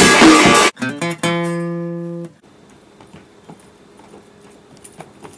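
Loud band music with drums cuts off, then a strummed guitar chord rings out and fades, stopping about two seconds in. Quiet with a few faint taps follows.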